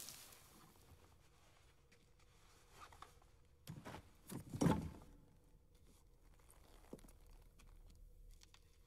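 Handling of a heavy six-barrelled minigun: a few metal clunks and a dull thud between about three and a half and five seconds in as it is lifted off the bench, then faint clicks.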